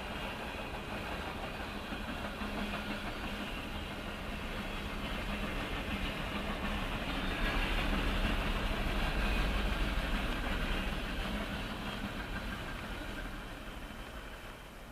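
Norfolk Southern mixed freight train rolling past, heard through a dashcam inside a car as a steady rumble. It swells about halfway through, then fades toward the end.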